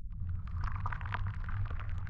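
Intro sound effect for a logo dissolving into particles: a low rumble under a dense crackling, hissing texture that sets in just after the start.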